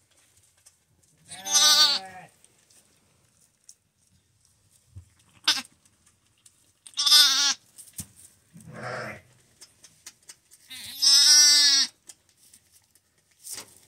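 Newborn lamb bleating, among its first calls after birth: three loud, quavering bleats a few seconds apart, with a few shorter, fainter calls between.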